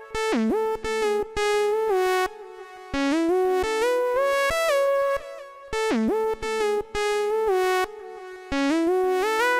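Electronic synthesizer melody: a single synth voice plays short phrases of notes that slide from one pitch to the next, with brief pauses between the phrases.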